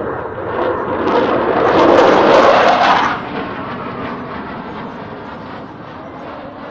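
Military fast jet passing overhead, its engine noise swelling to a peak about two and a half seconds in, then dropping off quickly and fading away.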